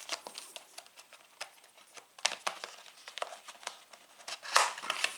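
Cardboard and paper packaging of a smartphone box being handled: scattered light clicks and short rustles, with a louder rustle near the end.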